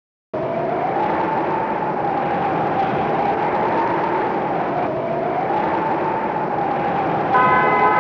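Storm wind sound effect: a steady rush of wind with a howling whistle that slowly rises and falls in pitch. Near the end a set of steady ringing tones comes in over it.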